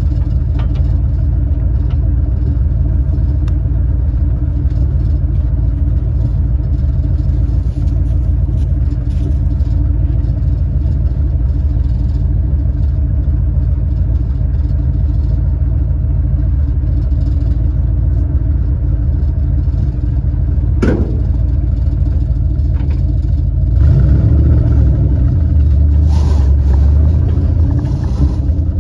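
1968 Dodge D300 tow truck's engine running steadily, with a single sharp knock about two-thirds of the way through and the engine getting louder for a few seconds near the end.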